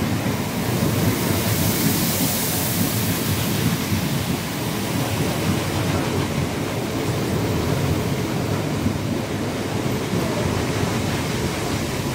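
Electric multiple-unit passenger train passing at speed right beside the platform: a loud, steady rush of air and rolling wheels.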